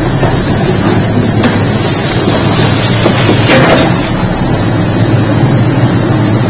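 Diesel engine of a JCB backhoe loader running steadily while it digs, with two short knocks about one and a half and three and a half seconds in.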